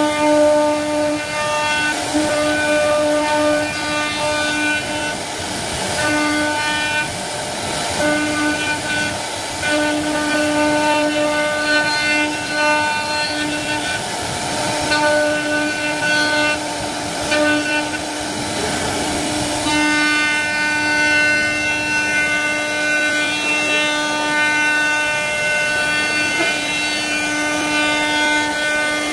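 CNC router spindle running with a high whine of fixed pitch while it cuts flutes into wood. The whine drops out and comes back every second or two over a steady hiss of cutting.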